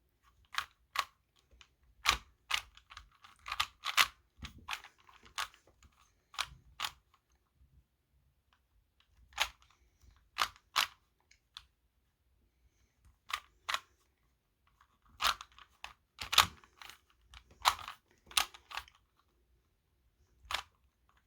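Plastic Rubik's-brand 3x3 cube being turned by hand: sharp clicking face turns in quick bursts of a few clicks, with short pauses between them, as the last layer is being solved.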